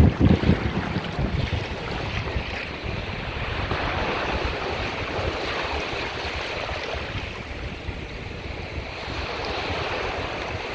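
Surf breaking and washing in a steady rush, with wind buffeting the microphone in low gusts during the first second or so.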